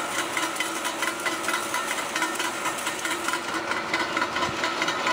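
MTZ-82.1 tractor's four-cylinder diesel running steadily while its mounted rotary ice cutter chips road ice, a dense, irregular clatter of cutter teeth striking ice over the engine's drone.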